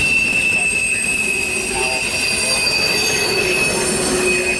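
Freight train rolling past, its wheels giving a steady high-pitched squeal against the rails over the rumble of the cars.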